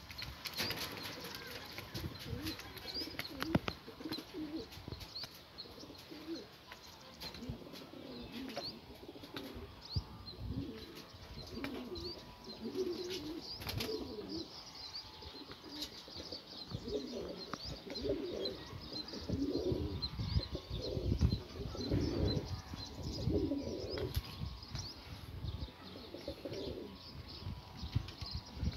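Pigeons cooing over and over, the coos growing more frequent and louder in the second half, with small birds' high chirps throughout.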